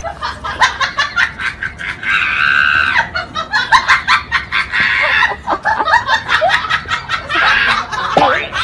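People laughing and shrieking, over a run of many short, sharp clicks.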